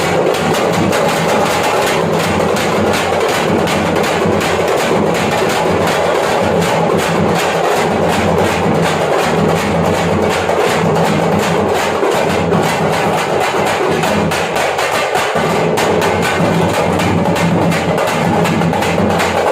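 Thappattam (parai) frame drums struck by an ensemble, loud, in a fast, steady, dense rhythm.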